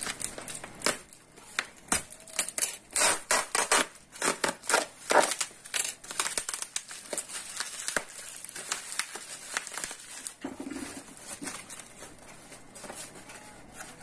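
Plastic bubble wrap crinkling and crackling in irregular bursts as a parcel is pulled open by hand. It dies down to faint rustles after about ten seconds.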